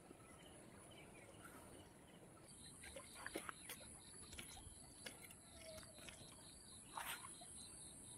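Near silence at a riverside: faint background hiss, with a few sharp clicks from fishing rod and tackle handling in the second half, over a faint, fast, even ticking.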